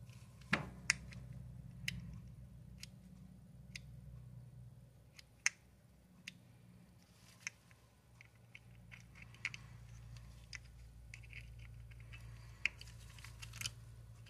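Irregular small clicks and taps of a screwdriver and metal parts against the plastic-and-metal body of an Olympic Penguin 204 spinning reel while a screw is worked out during disassembly.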